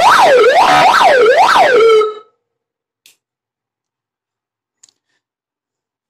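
Elena Smerch police siren amplifier sounding through its two horn speakers: a fast wail sweeping up and down three times, then cut off about two seconds in. It is very loud in the small room.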